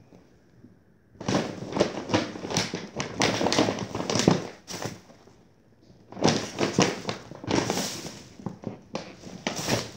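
Bags rustling and crinkling as someone rummages through them, starting about a second in, with a pause of about a second midway.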